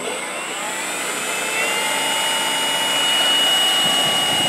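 Radio-controlled model Corsair's motor and propeller running with a steady whine as the plane taxis on the runway. The pitch steps up about one and a half seconds in and the sound grows gradually louder.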